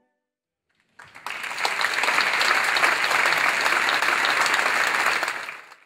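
Audience applauding, starting about a second in, holding steady and fading away near the end.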